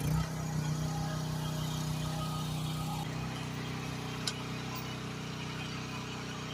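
GroundHog KH14G mini excavator's engine running steadily, its tone shifting slightly about three seconds in, with a single sharp click a little after four seconds.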